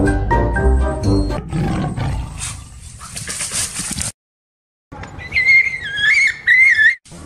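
Jingly background music with a steady beat, giving way to a tiger-roar sound effect dubbed over a toy tiger. After a brief dead gap at an edit, a high, wavering cry rises and falls for about two seconds.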